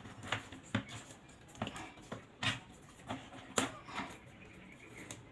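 Scattered light clicks and taps of electrical wires being handled and twisted together for a splice.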